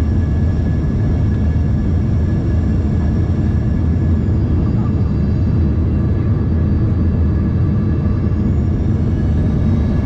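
Cabin noise inside an Embraer ERJ-145 regional jet in flight: a steady, loud low rumble of airflow and the rear-mounted Rolls-Royce AE 3007 turbofans, with a faint steady turbine whine above it.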